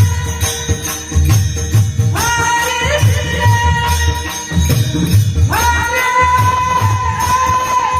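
Devotional-style singing in which a voice holds long, sustained notes, entering about two seconds in and again about five and a half seconds in. It is carried over a steady drum beat and rhythmic jingling percussion.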